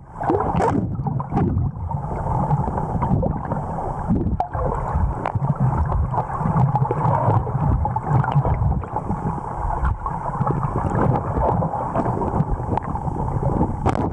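Muffled, steady rush and gurgle of water heard through an underwater camera housing as a freediver swims, with a few faint clicks.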